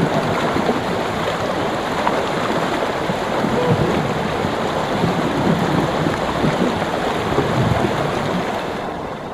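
Creek water rushing steadily past ice shelves along its banks, a loud even wash of running water that fades out near the end.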